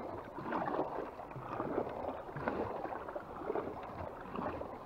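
Water sloshing and gurgling against the hull of a small fishing boat on calm sea, in uneven irregular splashes.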